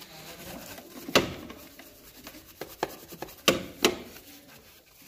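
Stiff-bristled detailing brush scrubbing degreaser foam over a car engine's plastic cover and parts, with a few sharp clacks, the loudest about a second in and two close together later on.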